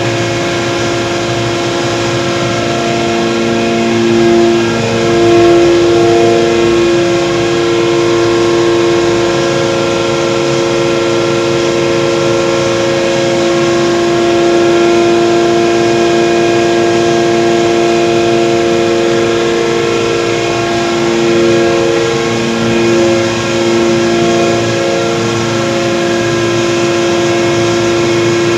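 Rice husk grinding machine running steadily: a loud, continuous mechanical hum made of several steady tones over rushing noise, the tones wavering a little in pitch now and then.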